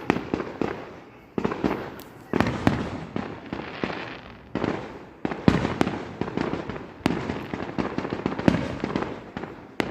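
Fireworks show: aerial shells bursting one after another, about one or two sharp bangs a second, each fading away, with crackling between the bangs.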